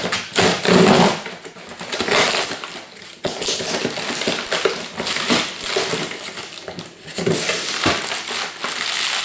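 Cardboard toner-cartridge box being torn open by hand, the loudest rips in the first second, then the cartridge's black plastic wrapping crinkling as it is lifted out.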